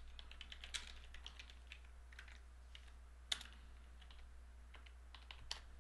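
Typing on a computer keyboard: quick runs of faint key clicks, with one louder keystroke about three seconds in, over a faint steady low hum.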